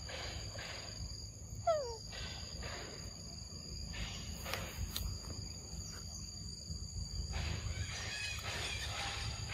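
A macaque eating mango, with soft, repeated wet chewing and biting noises, over a steady high-pitched insect drone. About two seconds in comes one short, sharp squeak that falls quickly in pitch, the loudest sound here.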